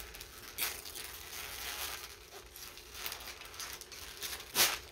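Wrapping paper crinkling and tearing as a present is unwrapped, with a sharper rip near the end.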